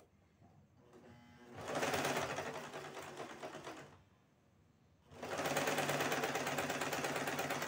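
Elgin electric sewing machine stitching along a bias-bound fabric edge in two runs of a couple of seconds each, with a short pause between them.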